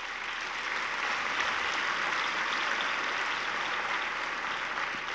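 Audience applauding, building over the first second and slowly dying away toward the end.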